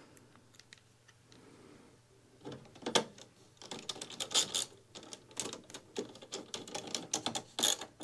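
Hand screwdriver driving a screw into a desktop PC's steel case: a run of irregular small clicks and scrapes starting about two and a half seconds in, with a sharper click near the end.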